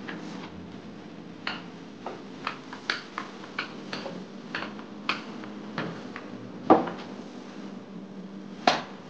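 Wooden rolling pin knocking and clacking on a wooden pastry board while dough is rolled out: a string of short sharp knocks, one every half second or so, with two much louder knocks in the second half. A faint steady low hum runs underneath.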